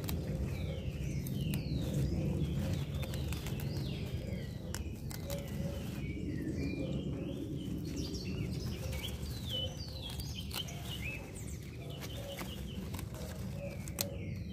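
Birds chirping over and over in short, quick notes, over a steady low rumble, with a few brief clicks.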